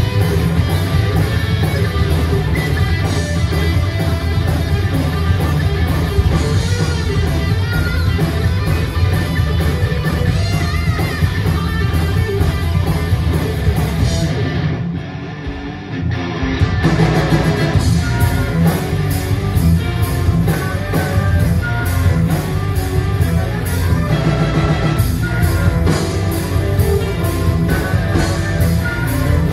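Heavy metal band playing live, with distorted electric guitars, bass and drum kit, heard from the audience seats. About halfway through the cymbals drop out and it goes quieter for a couple of seconds before the full band comes back in.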